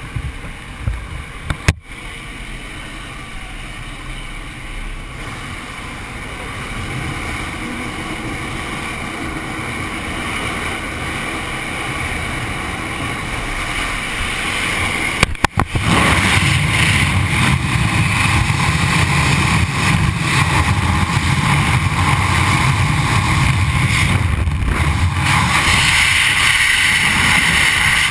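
Wind and aircraft noise on a skydiver's helmet camera. First the steady rush of the jump plane's engine and slipstream at the open door, growing slowly louder. After a brief break about halfway through comes a louder, steady rush of freefall wind across the microphone.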